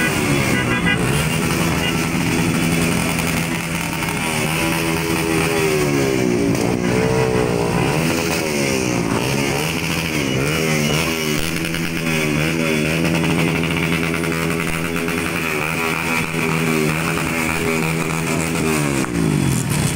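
Motorcycle engines running among a crowd, with a steady low hum under engines revving, their pitch rising and falling again and again through the middle.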